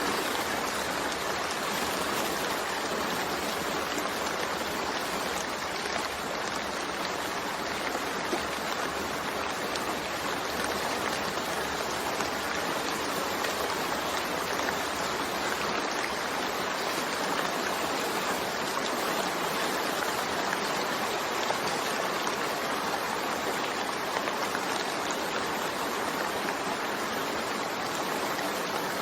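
Steady rain falling: an even, unbroken hiss of water with no thunder.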